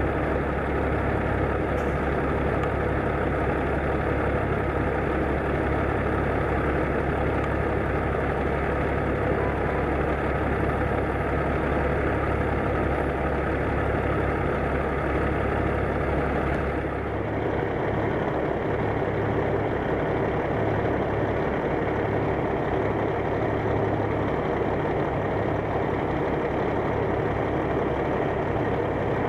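Diesel engines of semi trucks pulling livestock trailers, running steadily at low speed or idle. The sound changes abruptly about two-thirds of the way through.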